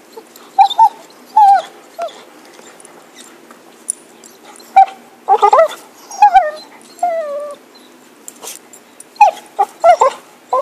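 Cocker spaniel whining and yipping in short, high-pitched calls, several sliding down in pitch, coming in clusters while it digs at a log for a stick, with short clicks and rustles between the calls.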